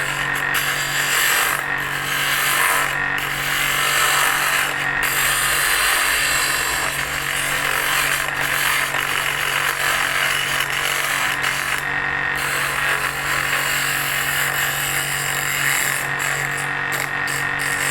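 Bench drill press running as a makeshift lathe, spinning a wooden chisel handle while a hand-held cutting tool shaves the wood. A steady motor hum sits under a rasping cutting noise, which breaks off briefly several times.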